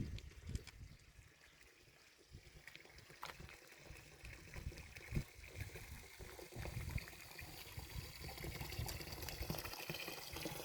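Faint water trickling, a little louder in the second half, with a few soft low knocks.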